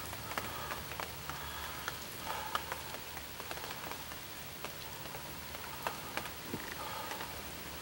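Steady rain pattering on a hunting ground blind, with many separate drops ticking sharply through it.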